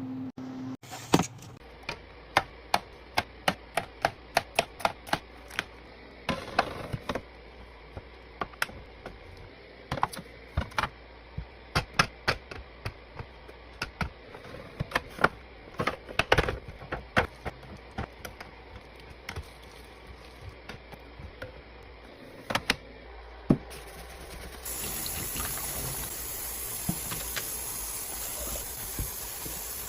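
Food containers and packaging handled and set down during fridge restocking: a long run of sharp clicks and knocks, at times several a second. About 25 seconds in, a steady hiss of liquid pouring begins and carries on.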